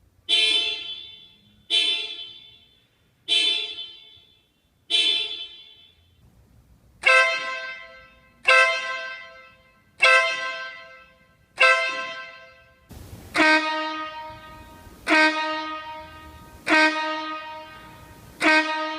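Vehicle horns sounded in three sets of four short blasts: a standard car horn, then a Marco Tornado air horn, then a Marco Hurricane air horn. The third set is lower-pitched and rings longer.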